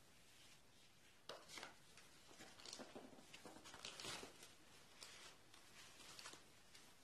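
Faint rustling and crinkling of foam packing sheets and a taped cardboard box being handled, in short irregular bursts with a few sharper crinkles.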